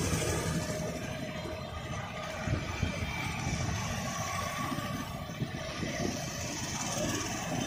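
City street traffic: scooter, motorcycle and auto-rickshaw engines running as they pass, a steady hum of mixed engines.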